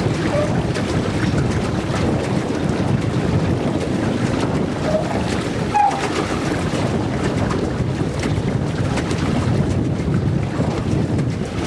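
Steady rush of wind buffeting the microphone, mixed with water washing past the hull of a small boat under way.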